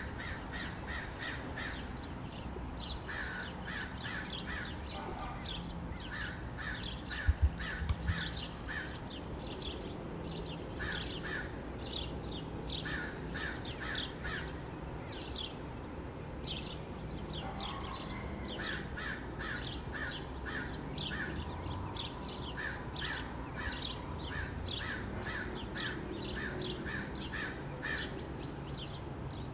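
American crows cawing in quick runs of three to five harsh calls, repeated every couple of seconds: alarm calls at a gray fox close by. A pair of sharp knocks about seven seconds in.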